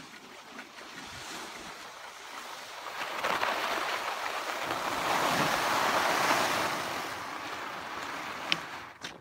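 Rushing hiss of sliding at speed over packed, groomed snow, with air rushing past the microphone. It builds about three seconds in, is loudest around six seconds, and eases off near the end, with a single sharp click just before the end.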